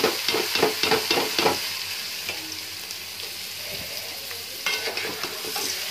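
A spatula stirring raw rice in hot oil and fried onions in a steel karahi, scraping the pan in quick strokes over a steady sizzle. The stirring pauses about a second and a half in, leaving only the sizzle, and resumes briefly near the end. The rice is being fried in the oil before water is added for polao.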